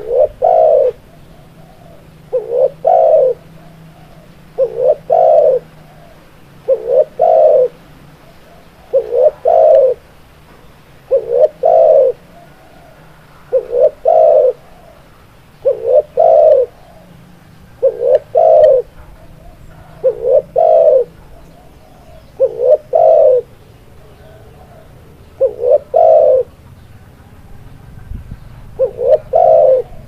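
Spotted dove (tekukur) cooing: a short phrase of two or three low coo notes, repeated about every two seconds.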